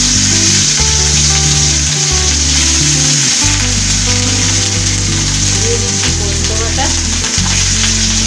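Boiled onion paste sizzling as it fries in hot mustard oil in a kadai, stirred with a metal spatula, with a steady frying hiss. Background music plays underneath.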